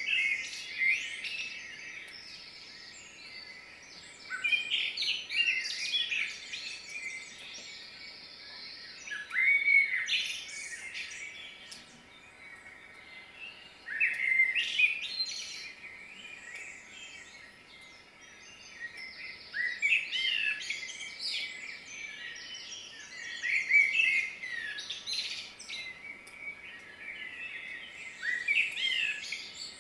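A songbird singing in short phrases of whistles and trills, a new phrase about every four to five seconds.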